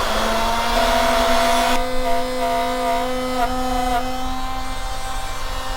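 Router on a horizontal router table running at full speed with a solid carbide spiral upcut bit, cutting a full-depth mortise. Its steady whine wavers slightly, about two to four seconds in, as the workpiece is plunged and moved back and forth against the bit.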